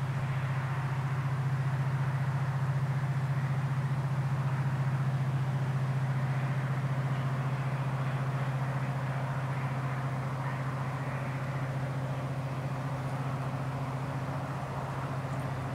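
Diesel locomotive running with a steady, constant low hum over a rushing mechanical noise, easing slightly near the end.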